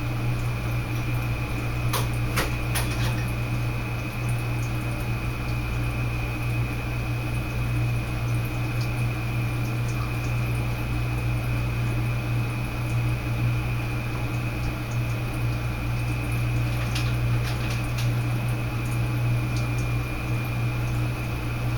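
A steady low hum, with a few faint clicks about two seconds in and again later on.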